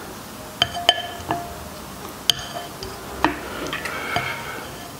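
Wooden chopsticks clinking against a sauce bowl as a piece of pork knuckle is dipped and turned in the sauce: about six sharp clicks, several with a short ringing tone.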